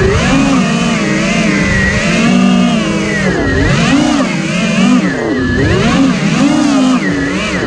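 FPV quadcopter's brushless motors and propellers whining, the pitch swinging up and down with constant throttle changes.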